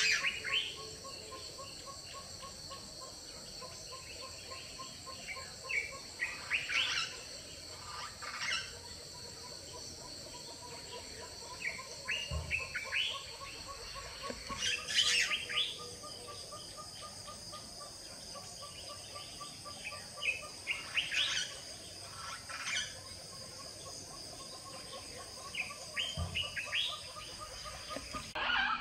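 Outdoor wildlife ambience: birds chirping on and off over a steady high insect drone, with a repeated short note at about four a second running beneath.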